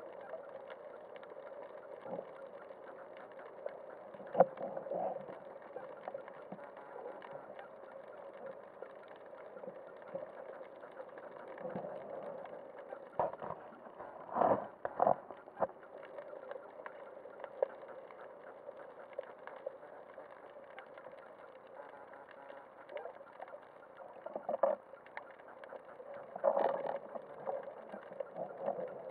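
Muffled underwater noise picked up by a submerged camera: a steady hiss with scattered clicks and a few louder short bursts about halfway through and near the end.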